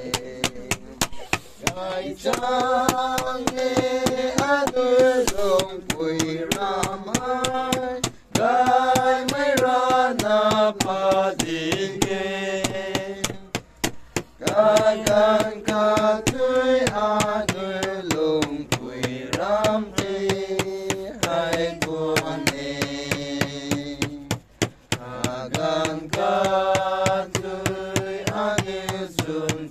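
A song: a voice singing long held and gliding notes over a steady beat of clicks.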